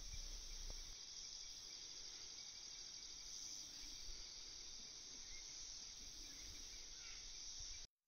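Faint, steady, high-pitched chirring of insects, cutting off abruptly near the end.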